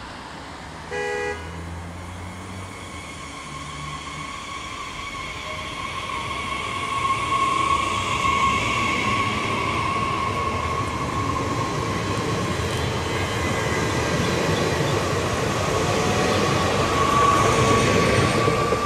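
SNCF AGC bimode TER train (B 82500 series) sounding one short horn toot about a second in, then pulling away past the platform. Its wheels rumble louder and louder as it gathers speed, with a steady whine over the top, and it is loudest near the end.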